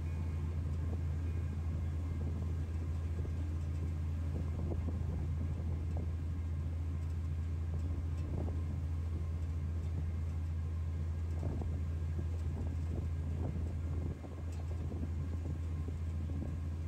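Steady low engine drone of a moving vehicle, with a few faint knocks; it drops a little in level about fourteen seconds in.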